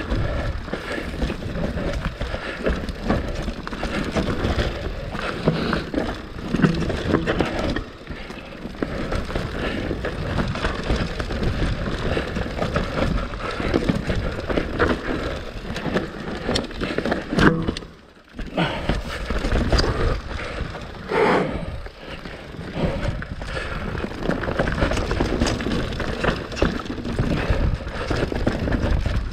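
Mountain bike descending a rough forest singletrack at speed: tyres rolling over dirt, rocks and roots, with the bike rattling and clattering on many small impacts. The noise briefly drops away about two-thirds of the way through, then resumes.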